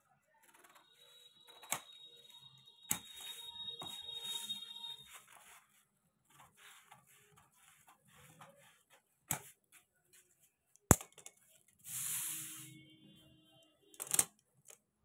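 Large steel tailoring scissors cutting through a stiff folded buckram pattern sheet: crunching snips with sharp clicks as the blades close, and the sheet rustling as it is turned. The loudest click comes about eleven seconds in, followed by a short rustle.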